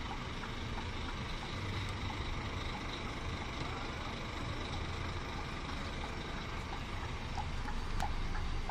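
Heavy diesel engine idling steadily, a low even rumble.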